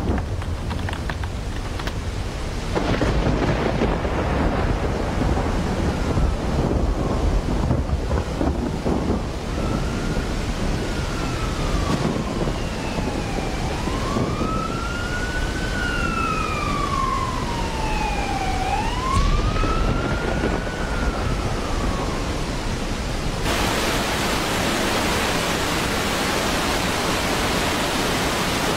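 Thunderstorm with heavy rain and low rumbling thunder. In the middle, a siren wails, rising and falling several times. About three-quarters of the way in, the sound switches to a steady, even hiss of pouring water.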